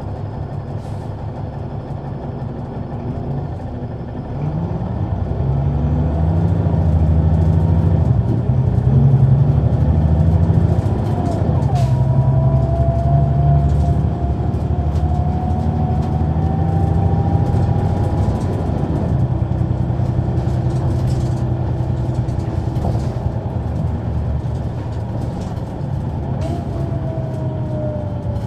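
Caterpillar C9 ACERT diesel engine of a 2004 Neoplan AN459 articulated transit bus, heard from inside the bus as it pulls away. The engine note climbs in steps from about four seconds in and is loudest around eight to eleven seconds. It then settles to a steadier drone, with a faint whine slowly rising in pitch.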